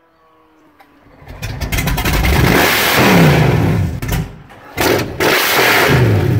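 High-performance marine engine of a 42-foot Fountain powerboat starting and revving hard, loud and raw. It eases off, is revved again about halfway in, and the pitch falls away after each rev.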